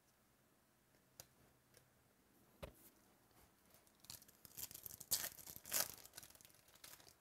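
Foil wrapper of a baseball card pack being torn open and crinkled, starting about four seconds in. A light knock comes shortly before.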